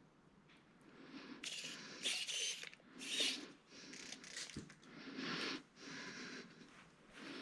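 Close-up handling noise while working on a Cat 6 cable's wire ends: a run of short scrapes and rustles, one after another, with a small knock about four and a half seconds in.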